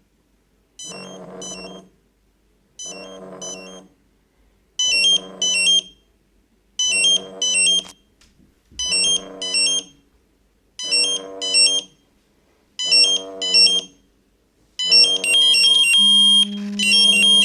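Fire brigade test-alarm alert from a digital pager and a phone alerting app: a two-part alert pattern repeats about every two seconds and gets louder about five seconds in. Near the end a second, continuous beeping alarm joins in.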